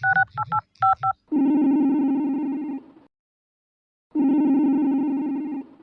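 Phone keypad beeps for the last few digits of a number, then the ringback tone of the call going through: two long steady rings with a pause of about a second between them.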